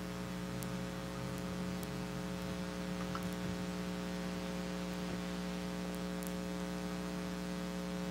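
Steady electrical hum with a faint hiss under it, and a few faint ticks.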